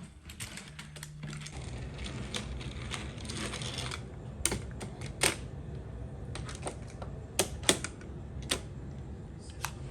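Irregular clicks and taps of a plastic take-apart toy being handled, with a few sharper clicks in the middle and a loud pair about three-quarters through, over a low steady rumble.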